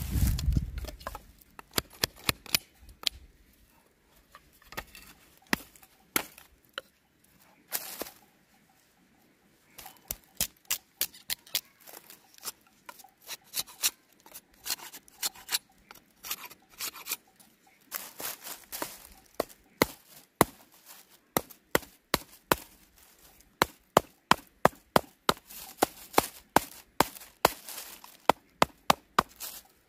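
A knife blade cutting and shaving a thin wooden stick: runs of short, sharp knocks, several a second, with a few brief pauses.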